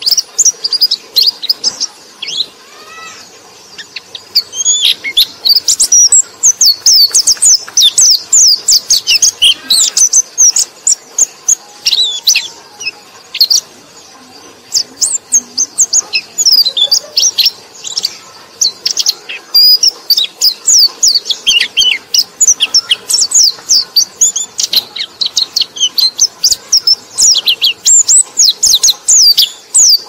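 White-eye (pleci) singing a fast, high-pitched twittering song of rapid chirping notes, with brief lulls about two seconds in and again near the middle.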